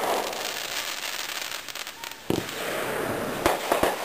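Aerial fireworks going off: a hiss of crackling sparks, then a sharp bang a little over two seconds in and several quick bangs near the end.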